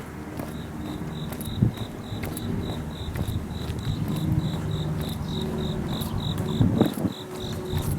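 A cricket chirping in a steady pulsed rhythm, about four high chirps a second, over a low rumble of passing traffic, with a couple of dull thumps.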